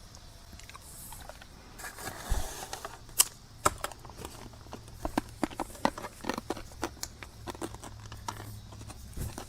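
Handling of the opened promotional radio mic's case and insides on a bench: many small irregular clicks, taps and scrapes, starting about two seconds in.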